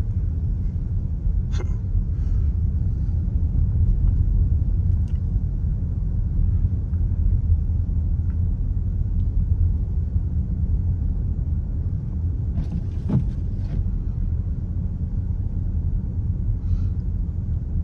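Steady low rumble of a 2018 Dodge Durango heard from inside the cabin while driving on snowy roads: engine and tyre noise, with a few faint clicks.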